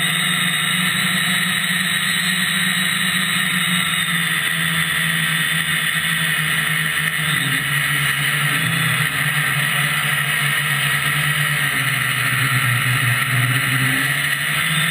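FPV quadcopter's MT2206 brushless motors and propellers droning steadily, heard from the aircraft's onboard camera. The pitch drops a little about seven seconds in as the throttle eases, then rises again near the end.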